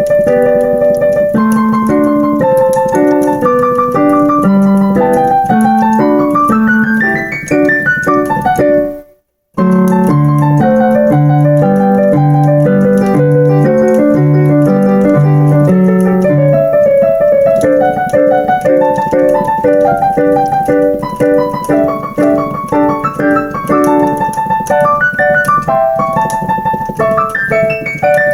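Digital piano being played: a steady pattern of low notes under a higher melody. A rising run of notes leads into a brief break of silence about nine seconds in, then the playing picks up again.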